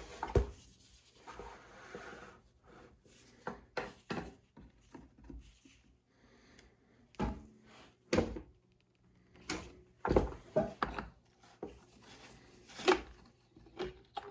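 Intermittent knocks, clicks and rubbing from handling a chainsaw and its oil cap and bottles, with a few louder knocks in the second half.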